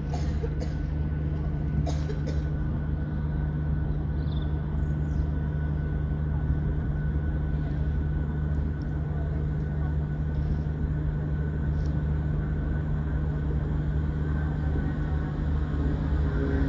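Low, steady hum of an approaching diesel train's engine, growing a little louder near the end as the train draws closer.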